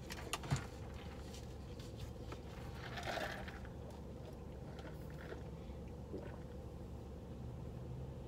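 Soft sip through a plastic drinking straw about three seconds in, over a steady low hum, with a few small clicks and handling noises near the start.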